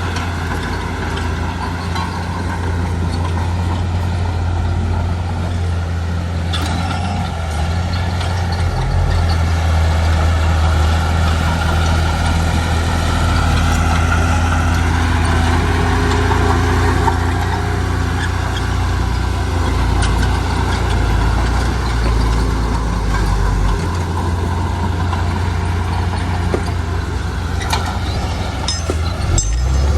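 Heavy diesel construction machine engine running steadily under load, a deep continuous drone, with a few sharp knocks near the end.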